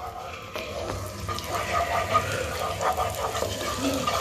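Oil sizzling steadily in a non-stick wok as chopped aromatics fry in it.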